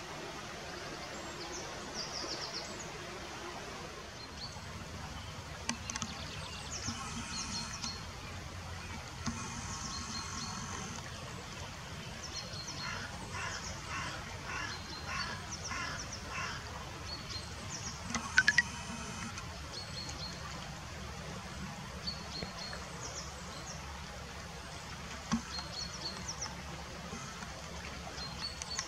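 Shallow river water running over stones, with small birds calling repeatedly over it: short high chirps throughout and a stretch of evenly repeated calls about halfway through. A brief burst of sharp clicks comes about two-thirds of the way in.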